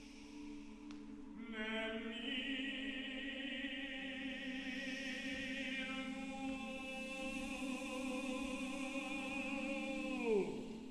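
Mixed SATB choir singing sustained chords over a steady low held note, the upper voices wavering with vibrato. Just after ten seconds the voices slide steeply downward together and break off.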